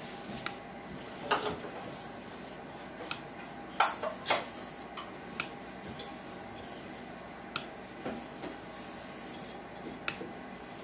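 Irregular sharp metallic clinks and taps, about eight of them, with stretches of light high scraping or rubbing between: small steel pieces and tools being handled.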